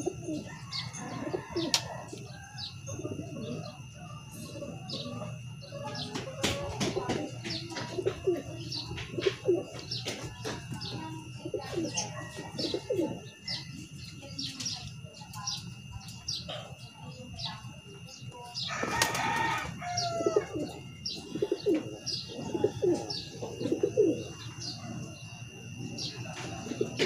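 Pigeons cooing over and over, with small birds chirping above them and a brief loud burst of noise about two-thirds of the way through.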